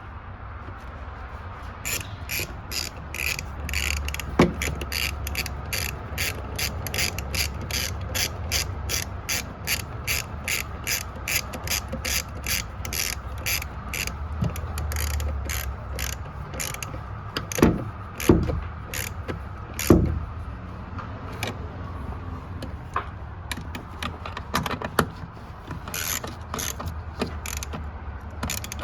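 Ratchet wrench clicking in quick, even strokes, about three a second, as bolts on the wiper motor are tightened. Later the clicks become sparser, with a few louder knocks of metal parts.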